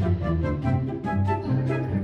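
Background music: a light, bouncy tune of short melody notes over a bass line with a steady beat.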